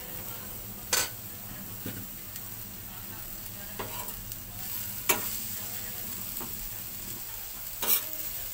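Pounded chili, garlic, anchovy and belacan paste sizzling in oil on a hot flat griddle plate, with a steady hiss. A metal spoon scrapes and stirs it against the plate, with three sharp knocks about a second in, around five seconds and near the end.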